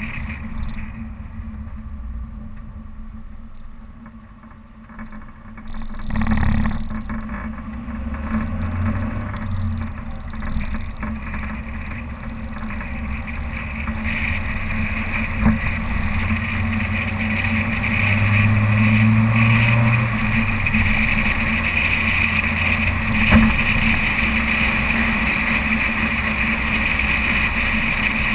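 Suzuki Vitara's engine running while driving off-road, its pitch rising and falling with the throttle. There is a thump about six seconds in and a couple of sharp knocks later on.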